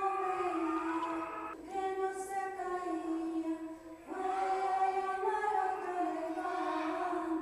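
A high voice singing long held notes that step from pitch to pitch, breaking off briefly about a second and a half in and again about four seconds in.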